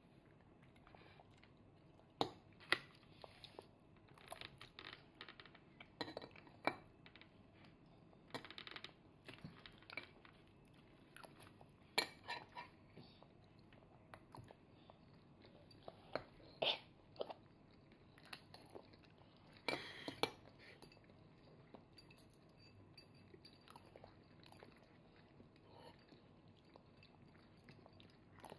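A toddler's metal-tipped fork and spoon clinking and scraping against a plate and bowl while eating, mixed with soft chewing. Scattered sharp clicks come every second or two, the loudest about twelve seconds in.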